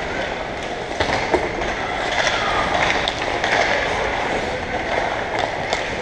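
Hockey skate blades scraping and gliding on the rink ice, with a few sharp clicks of sticks or puck in play.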